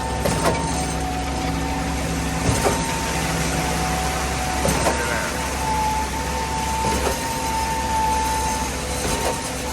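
Concrete pump truck's diesel engine running steadily under load, with a steady high whine and a short knock about every two seconds.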